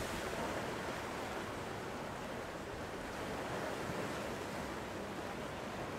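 Steady wash of sea waves on the shore, an even rushing noise with no distinct breaks or impacts.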